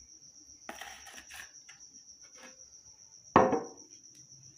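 Glass jar of liquid soap handled on a granite countertop: a brief scraping shuffle about a second in, then one sharp glassy clink near the end as the glass knocks against stone or its metal lid.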